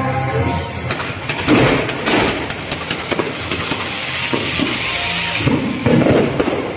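A string of firecrackers going off in a dense, rapid crackle, heaviest from about a second and a half to five and a half seconds in.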